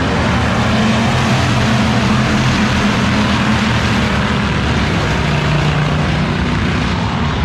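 Engines of several dirt-track race cars running at speed around the oval, a loud, steady drone of overlapping engine notes.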